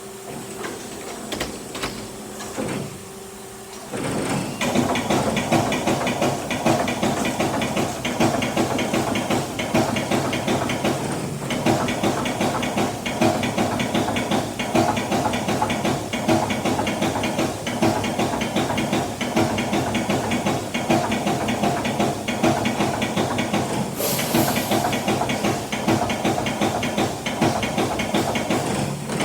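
CNC machine starting its cut about four seconds in, then running steadily with a dense, hissing machining noise; a brief sharper hiss comes about five seconds before the end.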